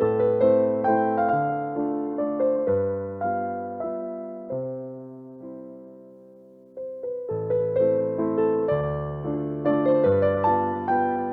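Background music: a gentle piano melody with chords, which fades out about six seconds in and picks up again a second later.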